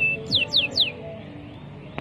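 Domestic canary singing: a short steady whistled note, then three quick notes sliding down in pitch, followed by about a second of quieter pause.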